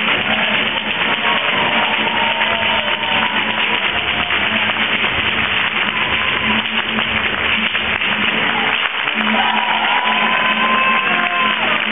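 Flamenco hand-clapping from many hands, dense and continuous, with a voice singing long drawn-out phrases over it about a second in and again near the end.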